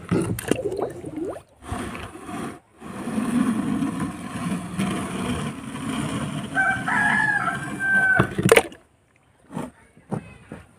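A rooster crowing once, a call of about a second and a half with a rise, a held note and a drop. Under it runs a rough noisy rumble that cuts off abruptly several times.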